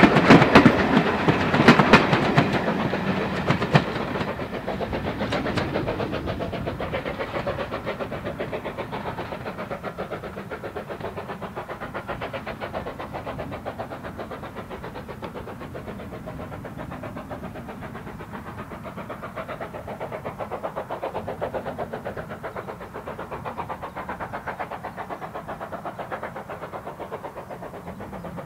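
BR Standard Class 4 2-6-4 tank engine hauling coaches away: for the first few seconds the coach wheels clatter over the rail joints, then the locomotive's exhaust beats fade steadily into the distance.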